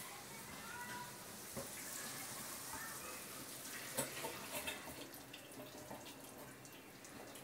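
Faint steady hiss with a few light clicks and knocks, the loudest of them about four seconds in.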